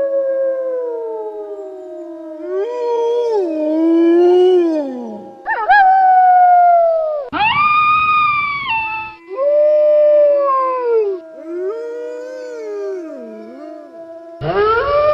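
Wolves howling in chorus: several long, overlapping howls slide up and down in pitch, one voice holding a steady low note beneath the others. The recording cuts abruptly between howls a few times.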